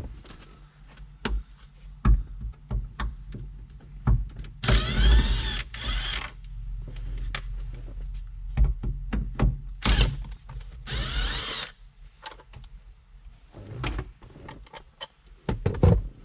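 Cordless screwdriver with a T20 Torx bit running in two short bursts of under two seconds each, about five seconds in and again about ten seconds in, its motor whine shifting in pitch as it backs out the screws of a truck's roof clearance light. Scattered clicks and knocks of handling the driver and light fall between the runs.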